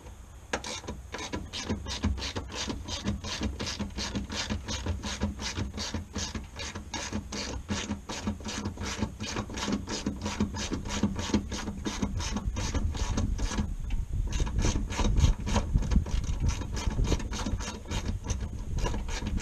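Hand ratchet wrench clicking steadily, about three clicks a second, as it backs out the 10 mm bolts holding the truck's fan shroud. There is a short pause about two-thirds of the way through.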